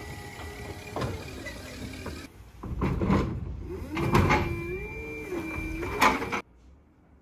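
Forklift working as it carries a stripped car body shell and sets it down on a platform scale: a steady motor whine, then a whine that rises and falls, with several metal clunks as the shell is lowered. The sound cuts off suddenly about a second before the end.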